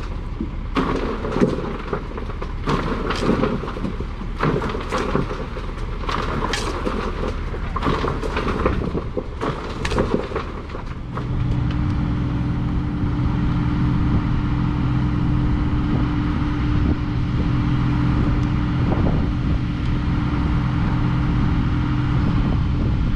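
Irregular clanking and scraping of heavy material being worked over a low machine rumble. About halfway through, a steady diesel engine drone takes over and runs on evenly.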